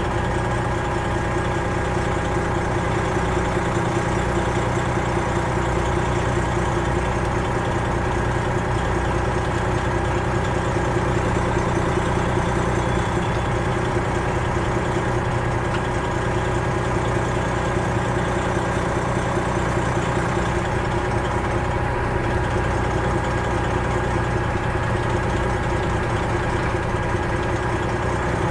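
Freightliner Classic XL semi truck's Detroit Diesel 12.7-litre inline-six diesel running steadily at low revs, an even drone with no revving.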